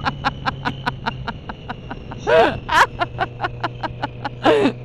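A rider laughing into a helmet microphone: a run of quick rhythmic laughs that fade away, then a few loud, high-pitched laughs about two and a half seconds in and again near the end. Under the laughter is the steady hum of a motorcycle engine.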